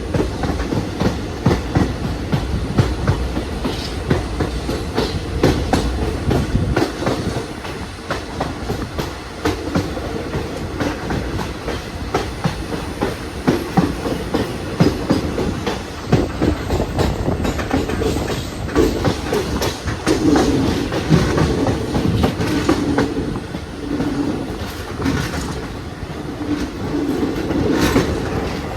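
Passenger train running on track: a steady rumble with the wheels clattering over rail joints.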